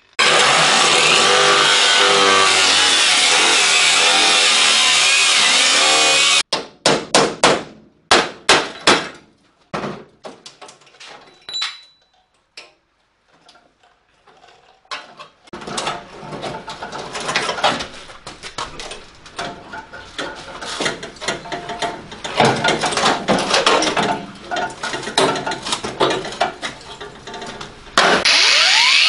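Cordless angle grinder cutting through rusted sheet steel of a 1958 Morris Minor's body, running steadily for about six seconds and stopping suddenly. Then a run of hammer blows on the metal, a quiet spell, more irregular hammering and knocking, and the grinder cutting again near the end.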